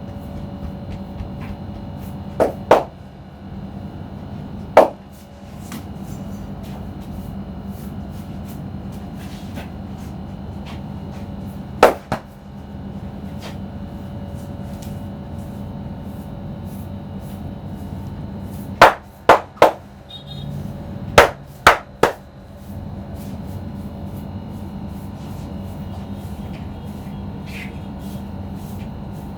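Sharp percussive strikes of a barber's head massage, landing on the customer's head or body. There is a quick pair a couple of seconds in, single strikes around five and twelve seconds, then two rapid runs of three strikes about two-thirds of the way through, all over a steady background hum.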